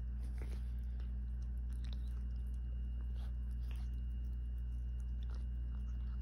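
A cat chewing and biting into a sandwich: faint, scattered small clicks of chewing over a steady low hum.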